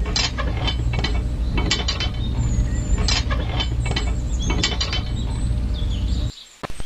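Small geared electric motor running, a steady low hum with rapid clicking and rattling of the gears. It cuts off about six seconds in.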